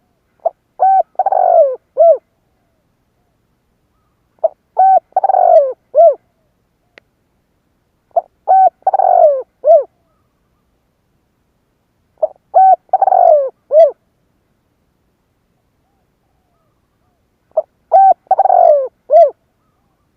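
Spotted dove cooing its song five times, about four seconds apart. Each phrase is a short note, a quick pair of notes, a longer falling coo and a final clipped note.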